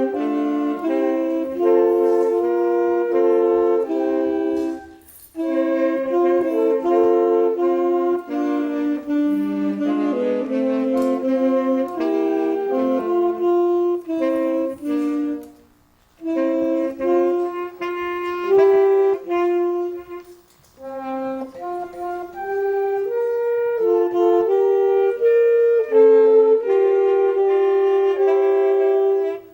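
Instrumental music: slow, sustained chords with a melody on a wind-like instrument, pausing briefly between phrases about five, fifteen and twenty seconds in.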